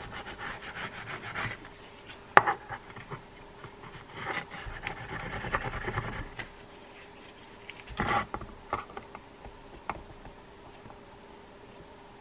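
Rubbing and handling noise from gloved hands working a fishing reel's handle knob, with a sharp click a little over two seconds in and a cluster of knocks around eight seconds in as the metal handle and reel parts are handled.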